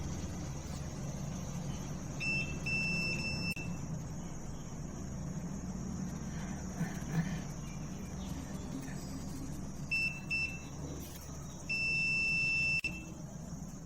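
Digital multimeter's continuity beeper sounding as the probes touch a plug pin and its wire: three short beeps, then two more, then one held for about a second. The beep means the conductor is continuous, so that part of the refrigerator power cord is intact. A steady low hum runs underneath.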